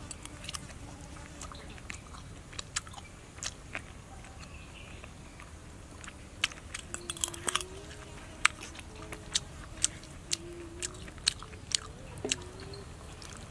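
Close-up chewing of a mouthful of steamed fish, with irregular wet mouth clicks and smacks that come more often from about halfway through.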